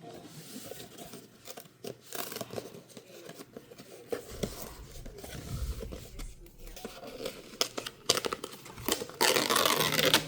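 Blind-box packaging being torn open and handled, with scattered scrapes and crinkles and a loud stretch of tearing about nine seconds in.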